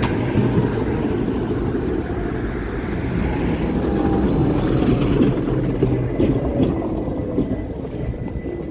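A KTM-5M3 (71-605) tram pulling in along the rails: a steady rumble of wheels and running gear with a faint high whine around the middle, easing off near the end as it draws to a stop.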